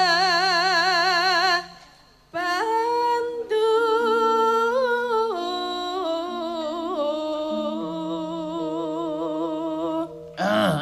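Solo voice singing a Javanese tembang in long held notes with a wide, even vibrato, with a breath pause about two seconds in. Steady sustained accompaniment notes sound underneath and change pitch in steps.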